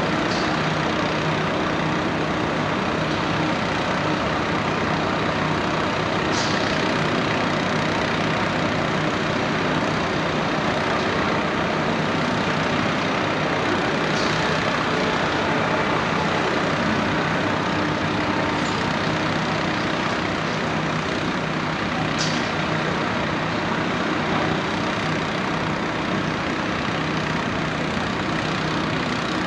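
Heavy diesel engine of an excavator drilling rig running steadily, with a few brief high-pitched sounds over the din.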